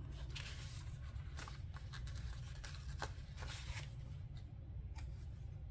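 Faint, scattered crinkles and rustles of paper sticker sheets being handled and stickers peeled off their backing, over a low steady hum.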